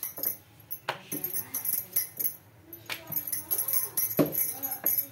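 Chapati dough being rolled out with a wooden rolling pin on a granite counter: the pin clatters and knocks against the stone, three sharper knocks standing out, with light metallic jingling as the hands work.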